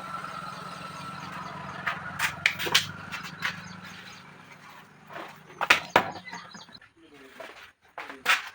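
A handful of sharp knocks and clanks, in a cluster about two to three seconds in and again around six and eight seconds, over a steady low motor hum that stops about seven seconds in.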